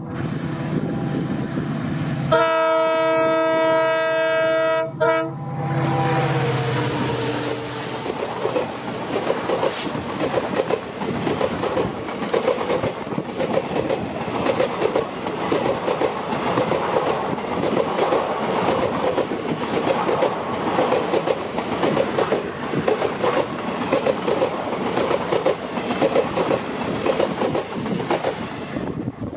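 WDP4D diesel locomotive sounding its multi-tone air horn in two blasts as it passes close by, the second blast dropping in pitch as it goes past, with its engine running beneath. Then the passenger coaches roll past with a steady, rapid clickety-clack of wheels over the rail joints.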